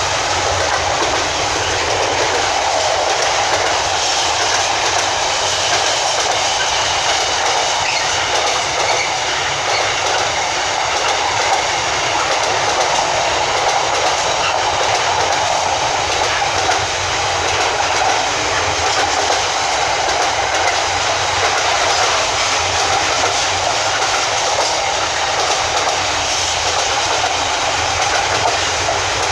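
Freight train hauled by a Class 66 diesel locomotive passing, its wheels rolling steadily on the rails.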